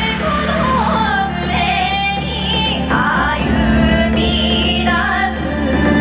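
YOSAKOI dance music over loudspeakers: a high, female-sounding voice sings a wavering, ornamented melody over sustained low notes.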